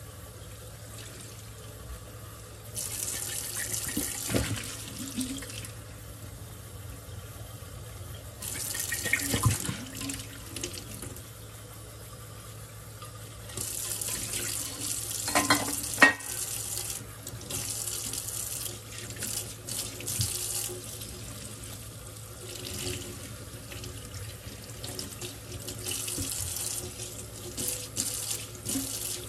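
Kitchen tap running into a stainless steel sink during hand dishwashing, the stream splashing louder in several stretches as a water bottle and other items are rinsed under it. A few clinks and knocks of items against the sink, the sharpest about halfway through.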